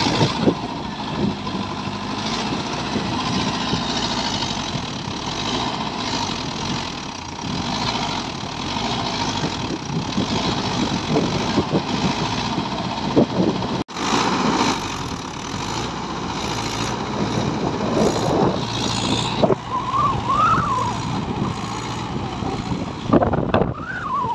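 Mahindra Yuvo diesel tractor engine running steadily as the mud-clogged tractor, rotavator attached, works through deep paddy-field mud at the edge of the bank. The sound breaks off for an instant about halfway through.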